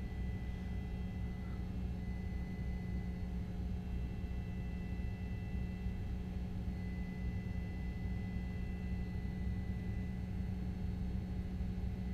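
Steady low rumble and hum of a vehicle driving, with faint high tones held steady throughout.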